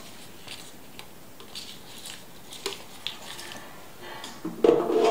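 Faint rustling and a couple of light clicks from hands handling ingredients over a glass blender jar, with a louder, short sound near the end.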